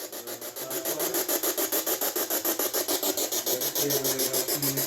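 Electronic static from a ghost-hunting device, pulsing rhythmically about ten times a second, with faint garbled voice-like fragments coming through near the end.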